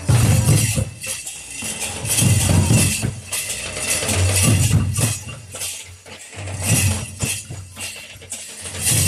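Santal festival drumming: a kettle drum and a barrel drum beat a dance rhythm. Deep strokes come in uneven groups, with sharp bright strikes above them.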